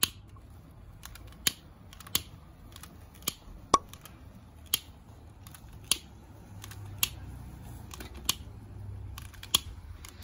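A series of sharp clicks, about one a second and unevenly spaced, over a low rumble, as fire-starter cubes in a charcoal kettle grill are lit with a lighter wand.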